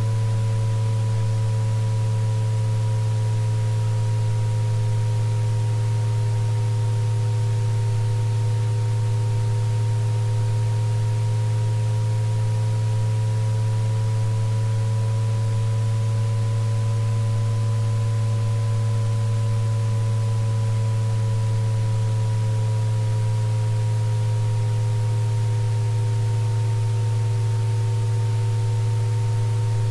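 Synthesized sound-therapy tones for tinnitus relief: a loud, steady low tone with several fainter, higher tones that slowly waver up and down in pitch, over a faint even hiss.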